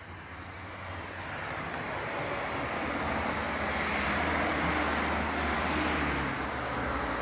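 A vehicle's running noise, growing steadily louder over the first few seconds and then holding.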